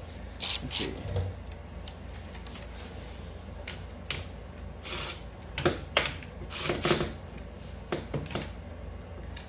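Scattered metallic clicks and clinks: a cordless ratchet and socket being handled and fitted onto the bolt of an ATV's gear shift lever, about a dozen short sharp sounds at uneven intervals.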